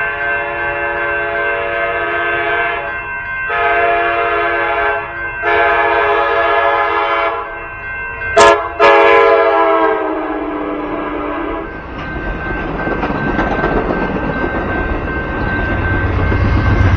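Amtrak Surfliner train horn sounding four blasts with short gaps, the last one the longest, with a brief sharp burst about eight seconds in. From about the middle on, the train's rumble and clatter builds as it reaches and passes the crossing, loudest near the end. The crossing's electronic bells ring steadily underneath.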